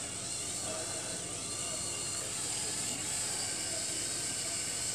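LEGO Power Functions electric motor whirring steadily through Technic gears as the crane's superstructure slews. It runs slowly on weak batteries.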